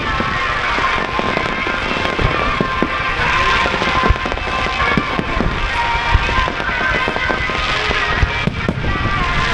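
Fireworks going off: a rapid, continuous run of bangs and crackles from aerial shells and ground fountains, with music playing throughout.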